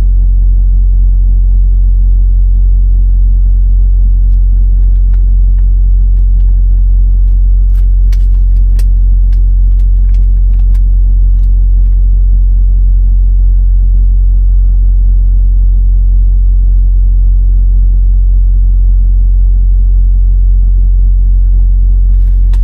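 Semi truck's diesel engine idling: a steady, loud low rumble, with a few faint clicks between about five and eleven seconds in.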